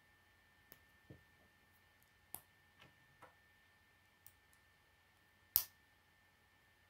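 Plastic K'nex rods and connectors clicking as they are handled and snapped together by hand: about seven short, scattered clicks, the sharpest one about two-thirds of the way through.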